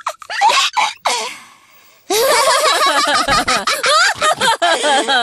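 Cartoon pig characters laughing together in a long run of quick laughs, starting about two seconds in after a few short voice sounds and a brief fading hiss.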